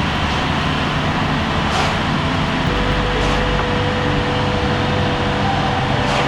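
Audi A4 B9's 2.0 TFSI turbocharged four-cylinder car driving at a steady pace, with engine drone and road noise throughout. Three brief whooshes sweep over it.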